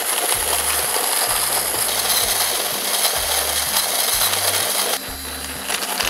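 HARIO Smart G electric hand coffee grinder running, its ceramic burrs crunching through coffee beans with a dense, gritty rattle. About five seconds in the grinding noise drops and thins.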